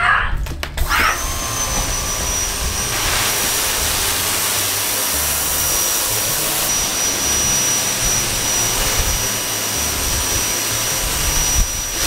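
Pressure washer running, its water jet spraying in a steady loud hiss with a high whine, starting about a second in after a short high-pitched cry.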